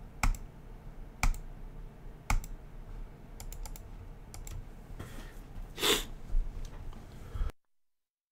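Computer mouse and keyboard clicks: single sharp clicks about a second apart, then a quick cluster of clicks, with a short rush of noise about six seconds in. The sound then cuts out to dead silence near the end.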